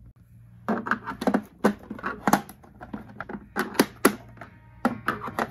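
Rapid, irregular plastic clicks and knocks from a screwdriver working at the plastic back housing of a battery wall clock to open the case.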